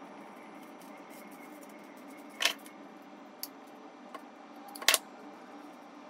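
Wire cutters snipping through the rotary phone's wires: two sharp snips about two and a half seconds apart, with a small tick between them.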